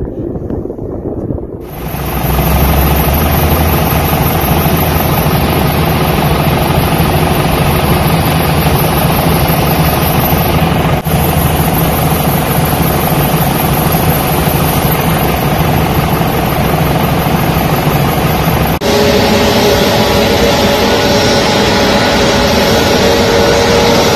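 Aircraft engines running loud and steady with a low hum as an airliner taxis. The sound starts suddenly about two seconds in and changes abruptly twice, near the middle and near the end.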